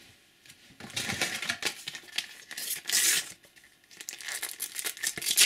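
A Panini sticker packet being torn open and its wrapper crinkled: irregular tearing and rustling that starts about a second in, is loudest around three seconds, and picks up again near the end.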